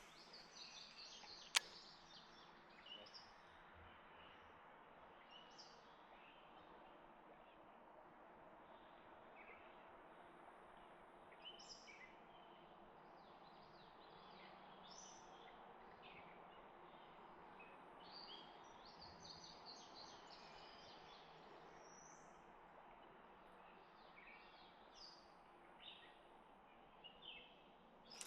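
Faint birdsong: scattered short chirps over a low, steady background hiss. One sharp click about a second and a half in.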